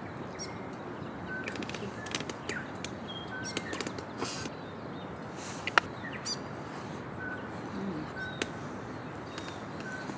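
Birds chirping: a short, high call repeated about once a second, with a few higher chirps, over a steady hiss. Scattered small clicks run through it, with one sharper click about six seconds in.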